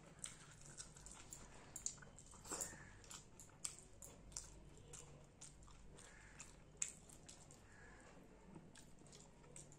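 Quiet, close-miked chewing and mouth smacks of someone eating rice and fish curry by hand, with sharp little clicks scattered throughout.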